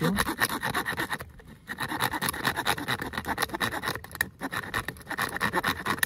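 Leatherman Surge multitool's metal-cutting saw blade sawing through a black plastic pipe in rapid back-and-forth strokes, with a short pause a little over a second in.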